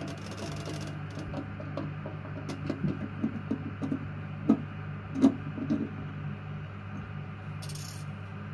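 Small clicks and knocks of old toilet-seat hinge parts and screws being handled and set down, with two sharper knocks around the middle, over a steady low hum.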